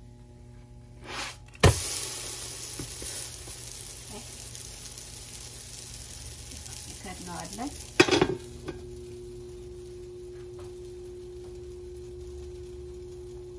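Flatbread dough flipped onto a hot electric griddle with a knock about two seconds in, then sizzling on the hot surface for several seconds. About eight seconds in an aluminium lid is set down over the griddle with a clatter, and a steady hum carries on after it.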